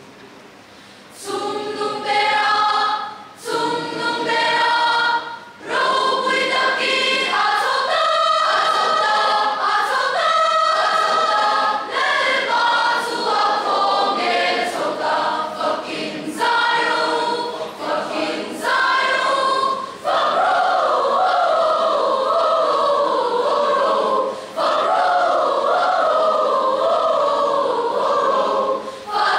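A large mixed choir of young women and men singing, starting about a second in, in short phrases broken by brief pauses, then in longer held lines in the last third.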